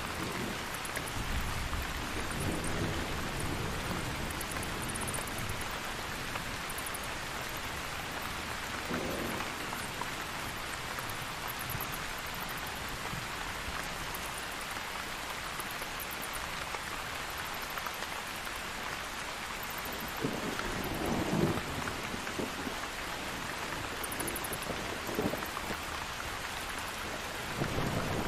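Steady rain falling, with thunder rumbling low several times; the strongest roll comes about three quarters of the way through.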